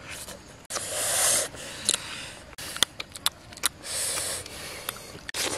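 A person eating roasted chicken by hand: sharp mouth clicks and smacks, with two hissing rushes of noise about a second long, near one second and four seconds in.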